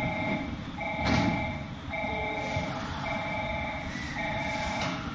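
Railway station platform warning alarm sounding for an approaching train: an electronic tone switching on and off about once a second. A short knock about a second in.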